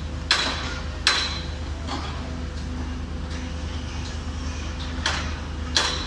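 Sharp metallic hammer blows with a ringing tone, about one every three-quarters of a second: three near the start, a gap of about three seconds, then two more near the end. A steady low hum runs underneath.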